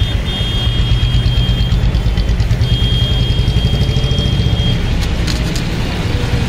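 Engine idling close by: a steady low rumble that pulses rapidly. A thin, high steady tone sounds twice over it.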